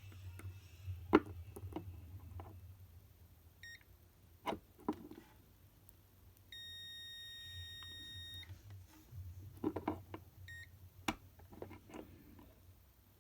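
Kobalt digital multimeter beeping in continuity mode: a steady beep of about two seconds in the middle, with short single beeps a little before and after it. Sharp taps and clicks of the test probes being handled come in between.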